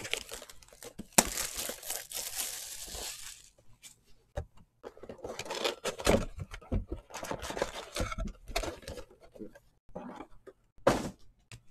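Trading card packs being torn open, their wrappers crinkling and rustling in bursts, with a long stretch of tearing and crinkling near the start and more crackling a few seconds later.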